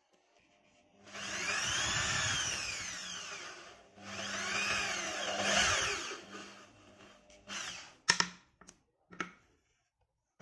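Hand-held electric drill boring through a thin wooden strip, run twice, its motor whine rising in pitch and falling away each time. A few sharp knocks follow near the end.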